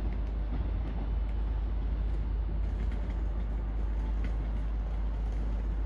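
TransPennine Express Class 185 diesel multiple unit moving off through the station, a steady low rumble of engine and wheels with a few faint clicks.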